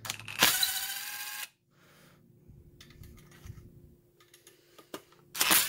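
DeWalt cordless impact driver with a Phillips bit running in two short bursts, backing out screws from a worm drive saw's rear motor housing. The first burst comes about half a second in and lasts about a second. The second starts near the end, with a few small clicks just before it.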